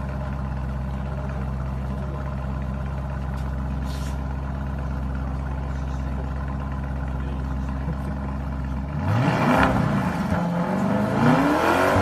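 Lamborghini Urus twin-turbo V8 idling steadily through its exhaust, then blipped twice from about nine seconds in, the pitch rising and falling back each time.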